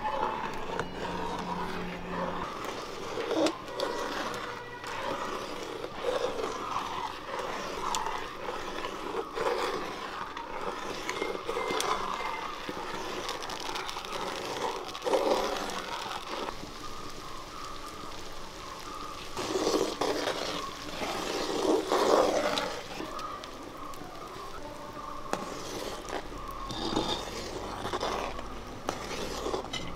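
A spatula stirring and scraping thick banana payasam around a metal pan, in uneven strokes with a few louder scrapes.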